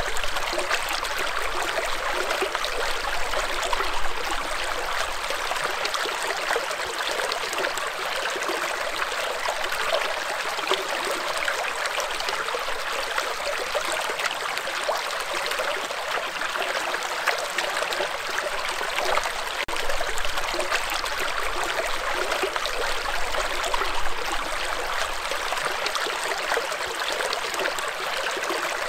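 Shallow stream running over and between rocks, a steady babbling and trickling of water.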